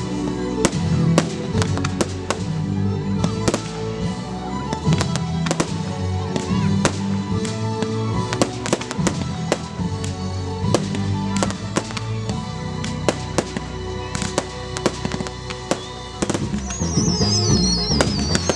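Fireworks display: a rapid, continuous run of bangs and crackles from bursting shells over music. Near the end come high whistles that waver and fall in pitch.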